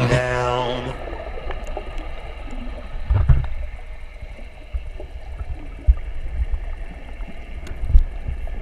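Muffled underwater sound picked up through a camera's waterproof housing: low rumbling and irregular thumps of water moving around it, with a few sharp knocks. Background music fades out during the first second.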